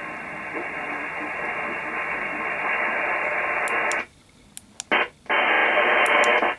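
Aquário RP-70 CB radio's speaker hissing with open receiver static. About four seconds in the hiss cuts out, there are a few light clicks, and it comes back twice as the mode button is pressed to switch from lower sideband to AM.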